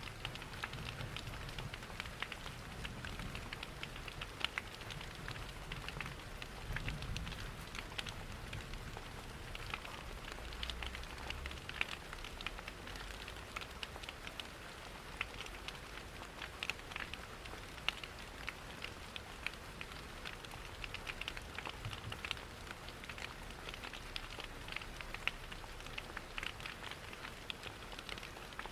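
Mixed ambience of steady rain with a crackling wood fire: a continuous hiss scattered with many small sharp ticks and pops, over a low rumble that is strongest in the first half.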